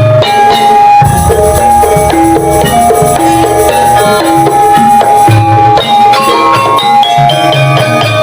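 Javanese gamelan ensemble playing: ringing bronze metallophone notes over rhythmic kendang drum strokes. A deep low swell comes in about a second in.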